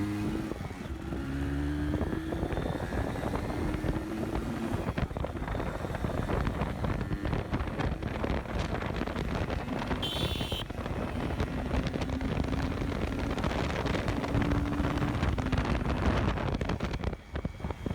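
Kawasaki GTO 125's two-stroke engine pulling hard under acceleration on a ride, its note rising in steps through the gears, with heavy wind noise on the microphone.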